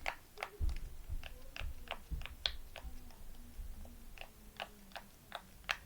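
Silicone pop it fidget toy having its bubbles pressed one after another: a run of short pops, about three a second.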